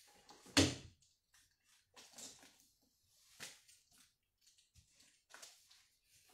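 Things being shifted and set down inside a cardboard box while it is packed: a loud knock about half a second in, then a few softer knocks and rustles.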